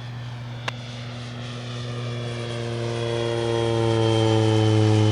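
Aircraft engine noise during touchdown and landing rollout: a low hum with a stack of tones that slowly fall in pitch while the sound grows louder. A single sharp click comes about a second in.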